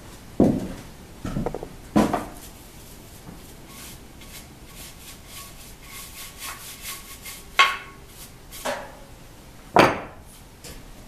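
Bandsaw parts being handled and worked on: knocks and rubbing of metal, with a run of light ticks in the middle and four sharp knocks, the loudest near the end.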